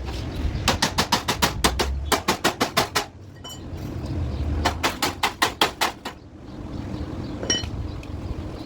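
Hand hammer beating the car's chassis metal in two quick runs of about six blows a second, then a single blow near the end that rings.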